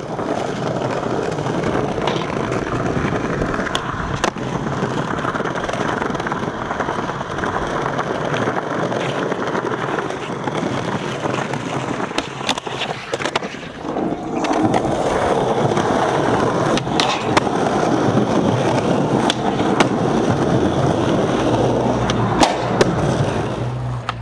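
Skateboard wheels rolling hard over paving stones, with sharp clacks of the board being popped and landed. The rolling drops out briefly about halfway through, then picks up again.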